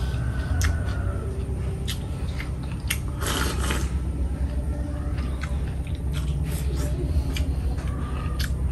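A person chewing food during a meal, with scattered sharp clicks over a steady low hum.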